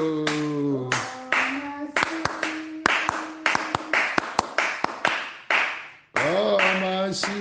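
Church congregation singing a praise chorus with steady hand clapping, about two to three claps a second. Near six seconds in the sound drops out briefly, then the singing and clapping come back.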